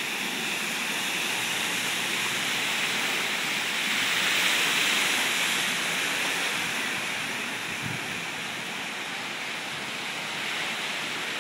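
Floodwater rushing steadily, a continuous hiss that swells a little about four or five seconds in.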